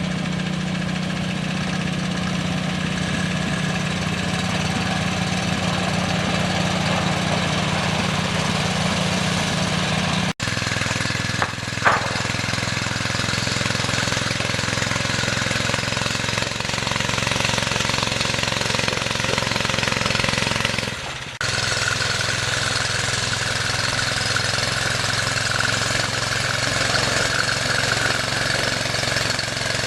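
Single-cylinder engine of a Baja SAE off-road buggy running steadily with a rough clatter, with one sharp knock about twelve seconds in. The sound drops out abruptly for an instant twice, about ten and twenty-one seconds in.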